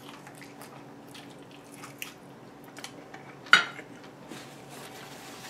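Someone chewing a bite of smoked beef rib: faint wet mouth sounds and small clicks, with one sharper smack or click about three and a half seconds in.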